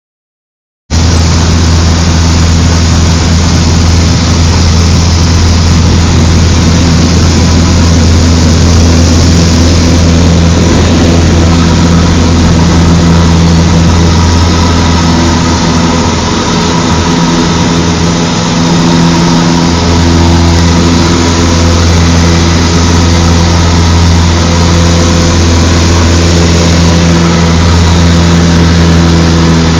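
Cessna 152's four-cylinder piston engine and propeller running at a steady speed, loud and even. It starts abruptly about a second in and dips slightly in level about sixteen seconds in.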